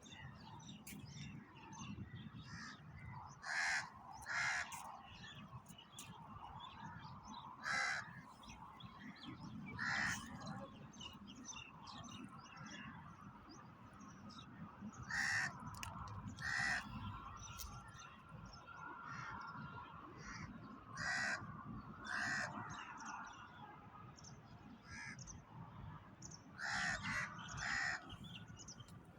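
Crows cawing: short harsh caws, often two in quick succession, every few seconds over a low steady background, with faint chirps of smaller birds between them.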